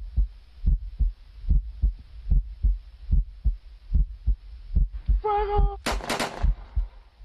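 Heartbeat sound effect: low double thumps repeating a little more than once a second. Near the end a brief wavering high tone, then a sudden sharp burst like a firing-squad gunshot volley, the loudest sound.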